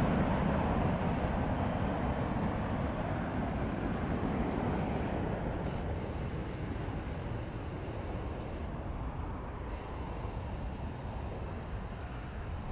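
Steady jet engine rumble of a United Boeing 757-300 taxiing at low power, slowly fading as it moves away.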